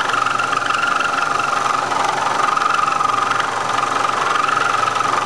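Milling machine running with a home-made cutter, made from an exhaust valve fitted with an insert, cutting a valve relief pocket into a race-car piston. It gives a steady high whine over a constant machine hum, the pitch wavering slightly.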